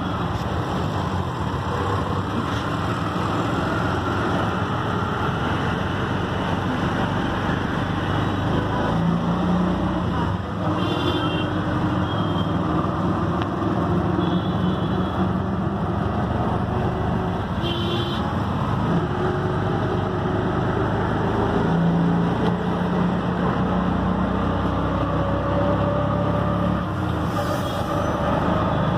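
Auto rickshaw's small engine running steadily under a passenger riding in city traffic, with road and surrounding traffic noise. A few short high-pitched beeps sound around the middle.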